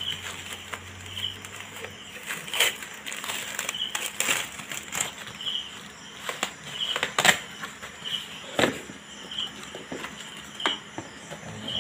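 Bubble wrap and cardboard packaging crinkling and crackling irregularly as they are pulled and peeled off a box by hand, with scattered sharp clicks, the loudest one about three-quarters of the way through.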